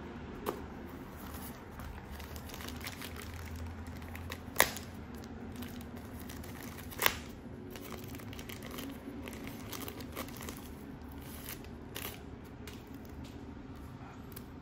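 Packaging and accessories being handled: plastic crinkling and rustling, with two sharp clicks about four and a half and seven seconds in.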